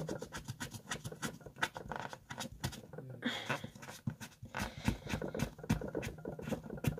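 Paper tissue scratching and rustling against fingernails: a run of many small, irregular scratches.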